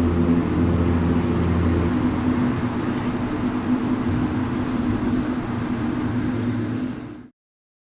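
Sound-art installation playback: a dense, steady rumbling drone with low hums, an unsettled and disturbed sound, that cuts off suddenly near the end.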